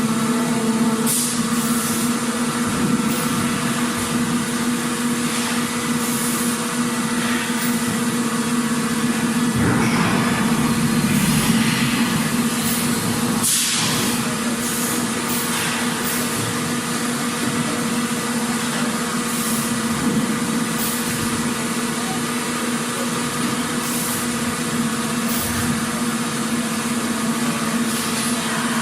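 Factory ambience: machinery running with a steady hum, with short sharp noises every few seconds and a louder, busier stretch about ten seconds in.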